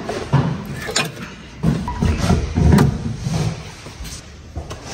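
Clicks and knocks of hand tools at work on a car's coilover suspension, with a sharp metallic click about a second in and a run of irregular thuds and knocks after it.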